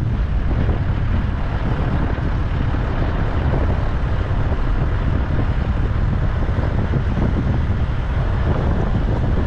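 Steady rumble of a motorhome on the move, road and engine noise with wind buffeting the microphone.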